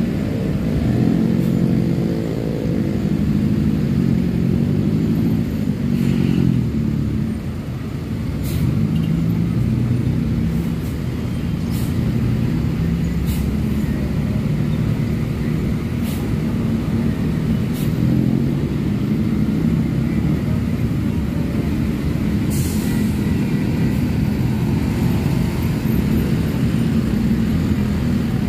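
Diesel engine of a large coach running under load in slow uphill traffic, its pitch rising and falling in the first few seconds, with motorcycle engines passing and a few short hisses.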